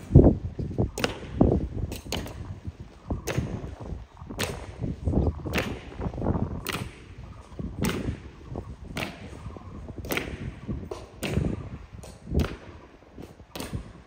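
Honour guards' boots striking stone in a slow ceremonial march, one sharp strike about every second with fainter clicks in between.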